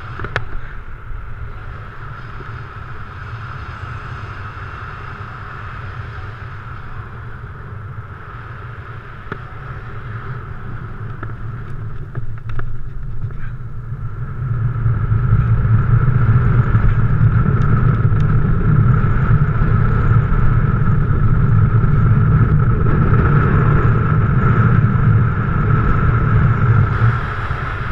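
Wind rushing over the camera microphone of a paraglider in flight, a deep buffeting rumble with a steady whistle through it. It grows much louder about halfway through as the glider goes into the fast rotation of a SAT acro manoeuvre, then eases off near the end.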